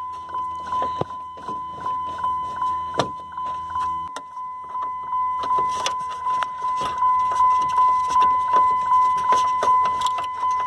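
A 2004 Dodge Ram 2500's dashboard warning chime dinging over and over, about twice a second, each ding a single fading tone: the door-open warning, with the door ajar and the key on. Light clicks and knocks of plastic dash trim being handled come through over it.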